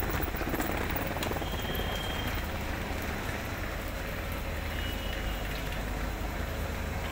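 Railway platform ambience beside a standing passenger train: a steady low rumble with faint footsteps.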